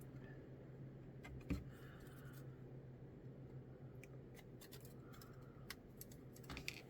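Sprue clippers snipping a plastic model part off its sprue: one sharper snip about a second and a half in, then light clicks and ticks of the plastic pieces being handled. A low steady hum runs underneath.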